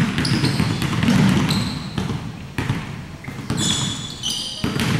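Basketballs being dribbled on a hardwood gym floor, a quick series of bounces, with short high squeaks from sneakers on the court.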